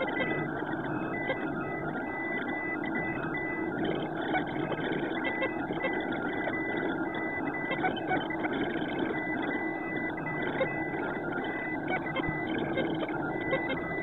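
Ender 3D printer printing: its stepper motors whine in short tones that keep breaking off and changing as the print head and bed move, over a steady whir.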